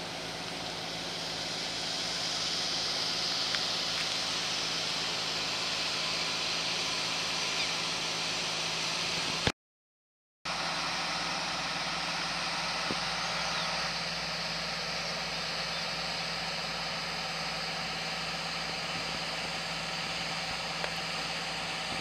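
Diesel truck idling: a steady engine hum that breaks off for about a second near the middle.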